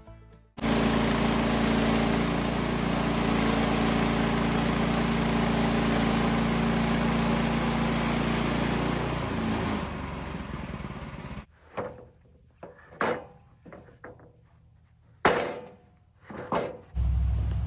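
Woodland Mills HM126 bandsaw sawmill's gas engine running steadily, then slowing and winding down about ten seconds in. A few sharp clunks follow, and near the end another engine starts up suddenly.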